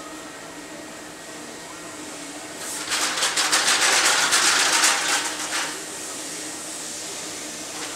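Masking tape being pulled quickly off its roll: a raspy crackling rip lasting about three seconds, starting near the middle. A steady hum runs underneath.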